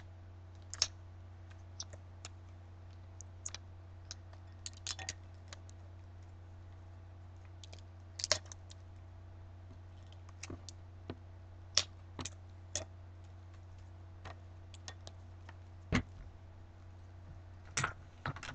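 Scattered light clicks and crinkles of gloved hands handling a plastic adhesive stencil against a wine glass, over a steady low hum. A single louder knock comes about sixteen seconds in.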